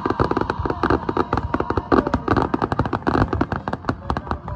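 Fireworks going off in quick succession: a dense run of sharp pops and bangs, several a second, from shells bursting low over the launch site.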